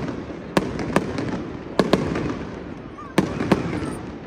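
Fireworks bursting: six sharp bangs, mostly in close pairs, each trailing off in a rolling echo.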